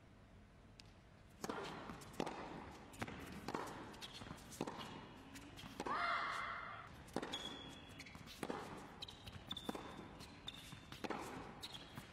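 Tennis rally on an indoor hard court: after a quiet first second and a half, racket strikes and ball bounces follow each other about every half second to a second, ringing in a large hall. There are short high shoe squeaks in the second half and a brief louder vocal sound about six seconds in.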